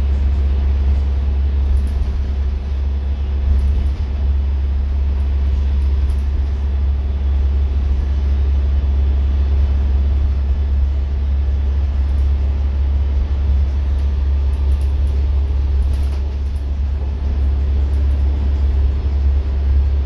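Daimler-engined Wright StreetLite single-deck bus running at steady motorway speed: a loud, even low engine drone with road and tyre noise, heard from inside the passenger saloon.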